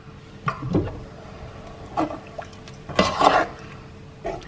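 Cooking-pot clatter: a glass pot lid and a metal ladle clinking and knocking against a pot of thick curry, a few separate clinks with a busier cluster about three seconds in, over a faint steady hum.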